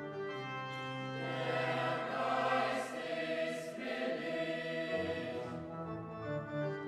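Boys' choir with lower men's voices singing a sacred German choral piece in sustained chords, swelling to its loudest a couple of seconds in, with hissed consonants twice, then thinning out near the end.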